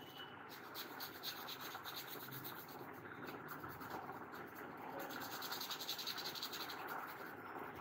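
Small brush scrubbing a wet, soapy laptop motherboard: a rapid, rhythmic scratching of bristles over the circuit board, a little louder in the second half. The board is being washed clean of liquid damage.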